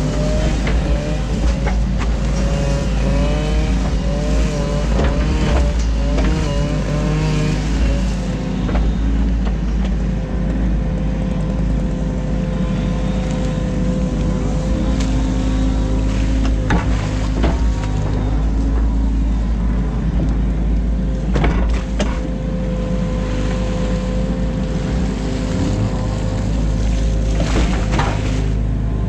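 New Holland Kobelco E50.2 mini excavator's diesel engine running steadily under working load, heard from the cab, with the hydraulics whining and shifting in pitch as the boom and bucket move during the first several seconds. A few sharp knocks from the bucket working the ditch come later.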